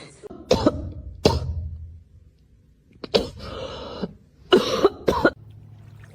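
Several short, sharp coughs or hacks, the last few coming close together near the end.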